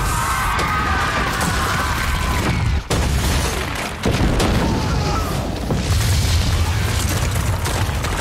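Massive film explosion of green wildfire: a deep, rumbling blast with crashing debris that keeps rolling on, briefly dropping out near three seconds and surging again about a second later.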